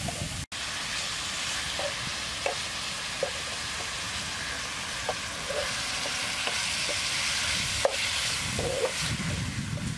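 Beef and sliced ginger sizzling in a frying pan, with a spatula scraping and tapping against the pan as it is stirred. A steady frying hiss with scattered short knocks, cutting out for an instant about half a second in.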